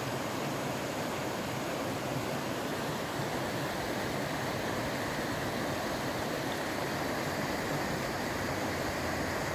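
A shallow, rocky stream rushing in small rapids over and between boulders: a steady, even sound of running water.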